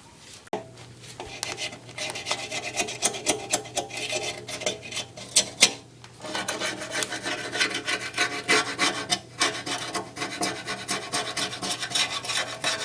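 Rapid, irregular hand scraping and rubbing on the Jeep's oil pan or engine block during oil pan gasket work, with a brief pause about six seconds in. A steady low hum runs underneath.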